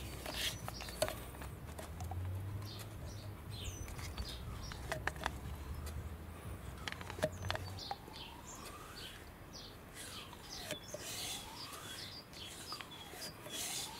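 Birds chirping in the background with short high chirps and gliding calls, over scattered faint clicks and a low hum that stops about eight seconds in.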